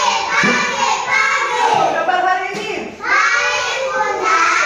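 Children's voices, high-pitched and continuous, speaking or chanting together.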